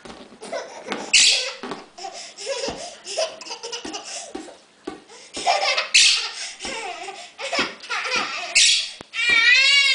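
A toddler laughing in repeated short bursts during a game of catch with a beach ball, ending in a wavering high-pitched squeal near the end.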